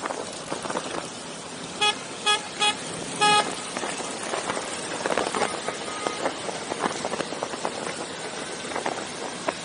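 A vehicle horn toots four times in quick succession about two seconds in, three short beeps and a slightly longer fourth, over steady road and engine noise.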